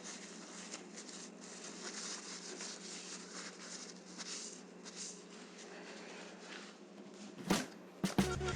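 Faint, uneven rubbing and wiping as a bicycle is cleaned by hand, over a low steady hum. A single knock comes about seven and a half seconds in, and music starts just before the end.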